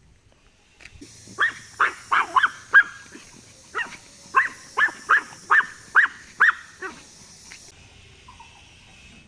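Puppy yapping: a run of about a dozen short, high-pitched barks over roughly five seconds, then it stops.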